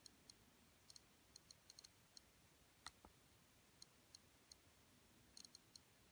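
Clicker of an HP-branded Apple iPod photo's click wheel: faint, sharp, high ticks coming in irregular runs as the menu is scrolled. About three seconds in there is a louder double click, a button press.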